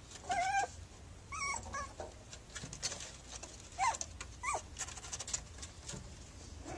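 Puppy whimpering in four short, high cries, the last two falling in pitch, as it strains to climb up a deck step.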